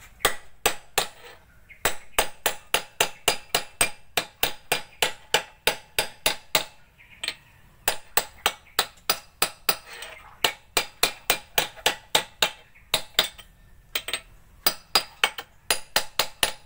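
Rapid hammer blows on a steel drift, about four a second with a few short pauses, each strike ringing metallically. The drift drives a part home on the drive shaft of a transit mixer's planetary drum gearbox.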